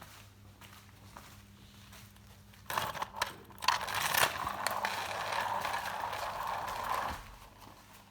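Toy RC car running, a clattering rattle with clicks that starts suddenly almost three seconds in, settles into a steady whirring rattle and stops abruptly about seven seconds in.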